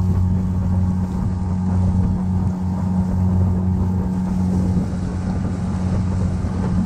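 Outboard motor on a small flats skiff running at a steady speed, a constant low hum, with wind buffeting the microphone.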